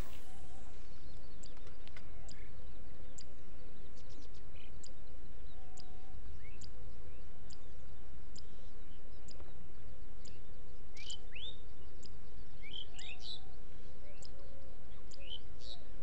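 Birds chirping over a steady low rumble of wind, with clusters of quick chirps about 11, 13 and 15 seconds in and faint sharp high ticks scattered throughout.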